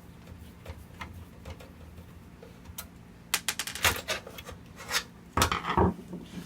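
Clicks and clattering knocks of a computer case being handled and opened: a few faint ticks, then a burst of sharp clicks from about halfway through, with the loudest knocks near the end.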